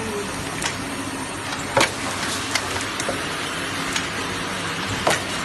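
Ruler screen printing machine running, a steady mechanical noise with scattered sharp clicks, the loudest a little under two seconds in.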